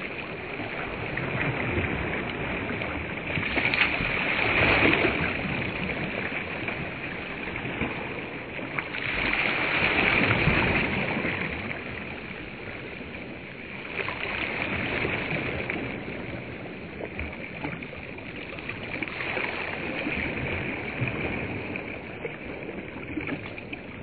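Small waves washing onto a sandy reservoir shore: a steady hiss that swells and eases every five seconds or so.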